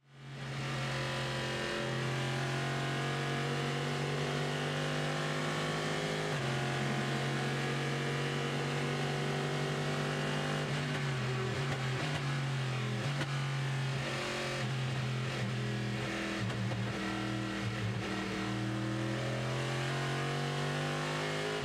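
Chevrolet Corvette C6.R race car's V8 engine heard onboard at racing speed, fading in at the start. Its pitch holds steady for long stretches with sudden steps at gear changes, wavers and dips through the middle, and climbs again near the end.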